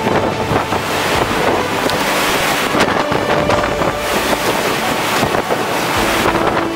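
Hurricane-force bora wind blasting the microphone, a loud unbroken rush of wind noise with faint whistling tones in it.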